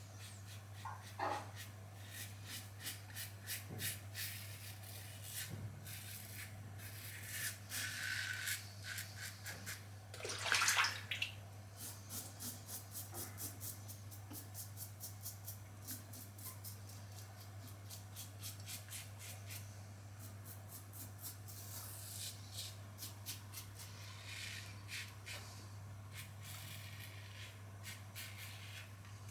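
Karve Christopher Bradley stainless safety razor with a Polsilver Super Iridium blade cutting through lathered stubble: runs of quick, crackly scraping strokes. A short burst of running water comes about ten seconds in, with a steady low hum underneath.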